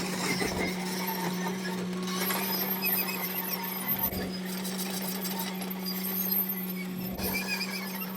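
A small motor humming steadily at one pitch, with scattered clicks, knocks and squeaks over it.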